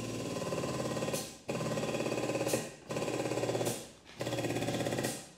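Hydraulic pump of a frame-jig pulling tower, run in four short bursts of about a second each with a fast rattling pulse, stopping near the end. Each burst takes up more pull on the chain straightening a crash-bent chassis leg.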